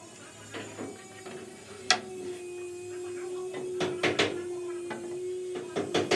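Electric drill motor starting about two seconds in and running at a steady pitch while it is used at a hinge on a teak window shutter frame. A sharp knock comes just before it starts, and clicks and taps from handling the drill and hinge come around the middle and near the end.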